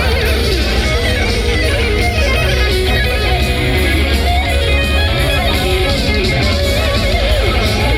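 Heavy metal music with electric guitars over a steady, heavy bass.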